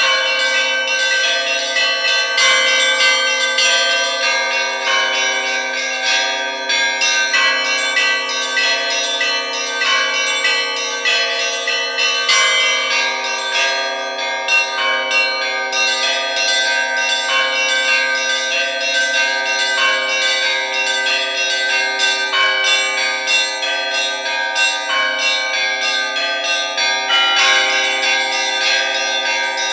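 Russian church bells rung by hand, heard close up in the belfry. Quick repeated strikes on the small bells run over the longer, steady ringing of the larger ones, so the tones hang and overlap without a break.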